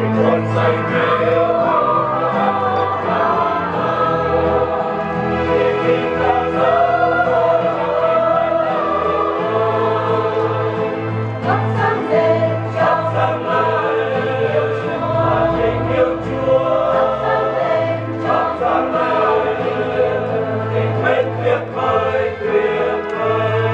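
A choir singing a Vietnamese Catholic closing hymn, with steady low held notes beneath the voices.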